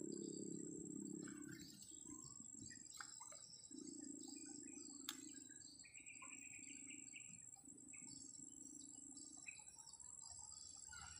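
Faint insects trilling in a steady high-pitched drone, with scattered short chirps. A low hum comes and goes, and there is a single sharp click about five seconds in.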